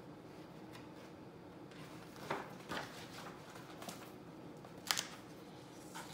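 A page of a picture book being turned by hand: a few short papery rustles and flicks, the sharpest a little before the end, over quiet room tone.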